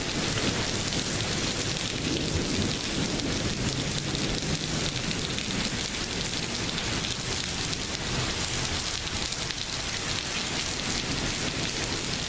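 Heavy rain falling steadily in a thunderstorm, with a low rumble of thunder fading over the first few seconds.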